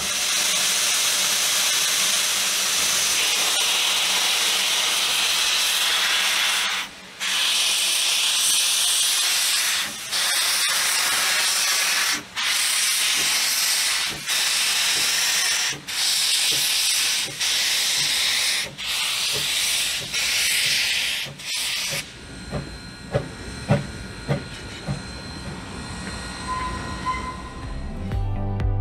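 Steam locomotive venting a loud, steady steam hiss as it moves slowly, the hiss briefly dropping out about every one and a half seconds. About twenty-two seconds in the hiss stops, and a few sharp metallic knocks follow.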